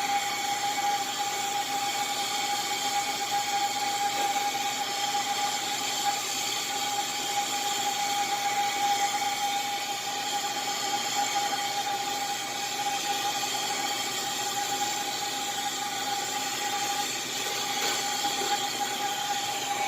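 Brazing torch flame hissing steadily while a copper refrigerant line is heated to unsweat it from the compressor, with a constant high whine running under it.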